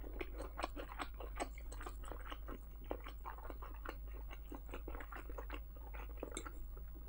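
A person chewing a mouthful of soft baked cauliflower-and-pasta casserole close to the microphone: quiet, irregular wet mouth clicks, several a second.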